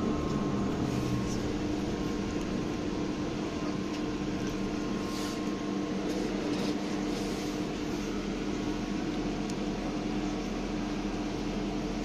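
Steady electrical hum with a constant tone inside a BTZ-5201 trolleybus cabin, the vehicle standing still or barely moving.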